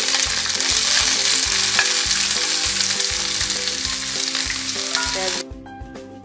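Sliced onions sizzling loudly in hot oil in a frying pan, cutting off suddenly about five seconds in. Background music with a steady beat runs underneath.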